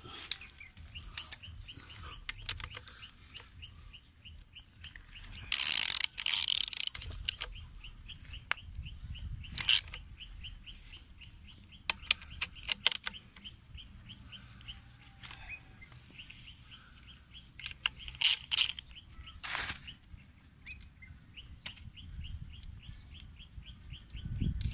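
Hand tools working on the connecting-rod bolts of a bared engine bottom end: runs of fast, even clicking, with a few louder metallic clanks and scrapes, the longest about six seconds in.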